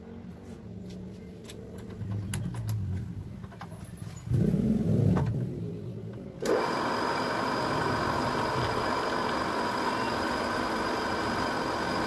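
Drill press: a few clicks of the vise being handled, the motor switching on with a low hum about four seconds in, then from about six and a half seconds a sudden, steady whirring as the bit cuts into the clamped workpiece, with a few high steady tones.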